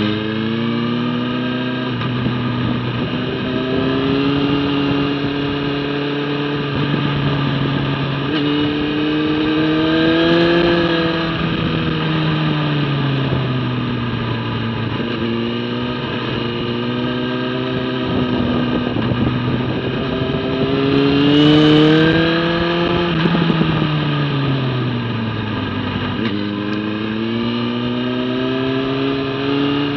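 Sport motorcycle engine heard from on board at track speed, its note climbing and falling several times as the bike accelerates out of corners and slows into them.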